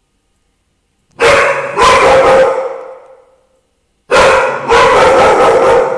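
A dog barking loudly in two bouts, one just over a second in and one about four seconds in, each made of two quick barks close together.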